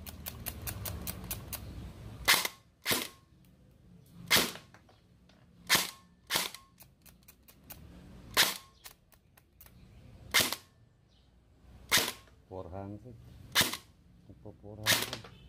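E&C 308 M4 electric airsoft rifle firing single semi-auto shots through a chronograph, about nine sharp cracks spaced unevenly half a second to two seconds apart. The chronograph reads close to 400 fps. A run of faint quick clicks sounds in the first second or so.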